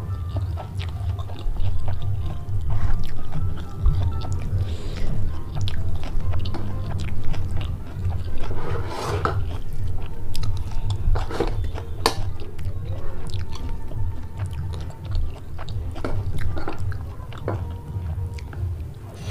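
Close-miked chewing and mouth clicks of someone eating squid and rice, with soft background music underneath.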